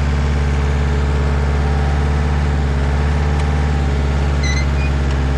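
An engine idling steadily, a constant low hum that does not change in speed, with a brief high chirp about four and a half seconds in.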